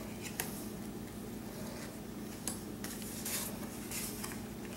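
Baseball trading cards flipped through by hand, a scattering of short papery slides and clicks as the cards are moved, with a steady low hum underneath.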